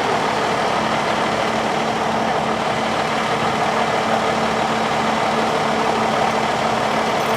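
A steady, unchanging engine idle: an even rumble with a constant low hum, typical of a parked vehicle left running.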